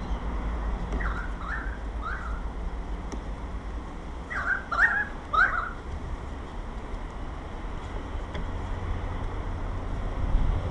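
Short bird chirps, several in two clusters, over a steady low outdoor rumble.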